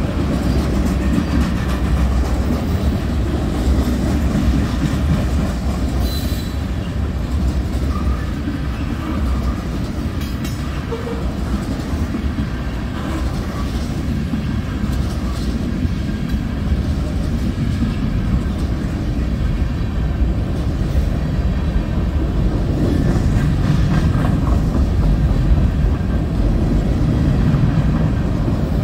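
Tank cars and covered hoppers of a long mixed freight train rolling past over a road crossing: a steady low rumble of steel wheels on the rails.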